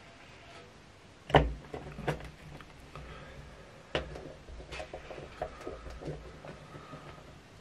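Knocks and clicks of fly-tying tools and materials being handled and set down at the tying bench: a sharp knock about a second and a half in, then scattered lighter taps, over a faint low hum.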